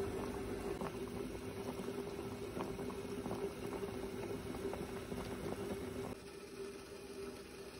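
Pot of bone-in chicken thighs at a rolling boil: water bubbling and crackling, with a steady low hum underneath. The bubbling turns abruptly quieter about six seconds in.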